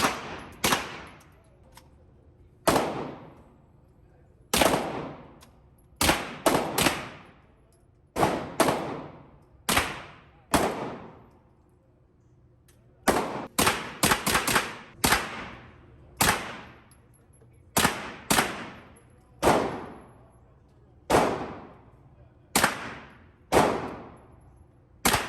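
Gunshots at an indoor range: about two dozen single shots at an irregular pace, some in quick runs, each followed by a short echoing decay.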